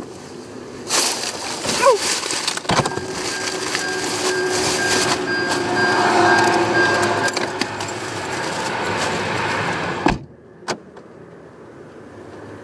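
A car door is opened and plastic shipping mailers are rustled and shuffled as packages are pulled out of the car, then the door is shut with a thud about ten seconds in.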